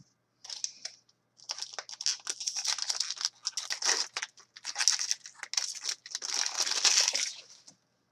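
Crinkling, rustling handling noise of a stack of trading cards being sorted by hand. It starts about half a second in and stops just before the end.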